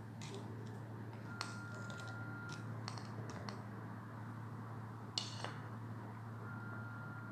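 Metal teaspoon clinking against a ceramic plate as it scoops nzu clay: a few light clicks, with a sharper clink about five seconds in, over a steady low hum.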